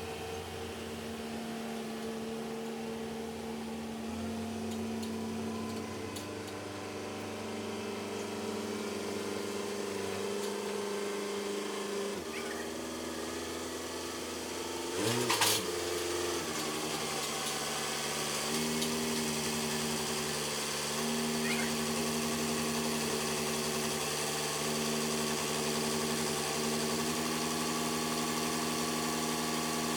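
Tractor engine running steadily, its speed shifting about twelve seconds in and again a few seconds later, with one short clatter in between.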